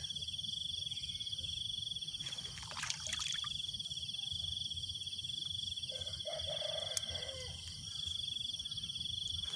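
Steady high-pitched chorus of crickets and other night insects, trilling without a break. Faint rustling a couple of seconds in and a single sharp click later on.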